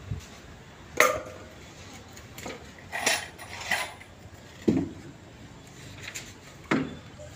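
Claw hammer knocking on the wooden shuttering of a footing box as it is nailed together: a handful of separate, irregular knocks with a light clatter between them. The loudest come about a second in, near the middle and near the end.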